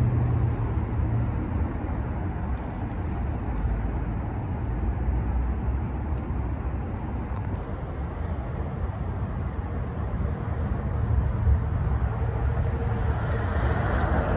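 Road traffic going by on a street: a steady rush of engine and tyre noise, with a vehicle's low engine hum fading in the first couple of seconds and another one coming up near the end.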